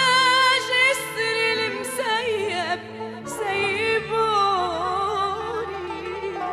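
Music: a solo voice singing an ornamented melody with strong vibrato over instrumental accompaniment with sustained low notes.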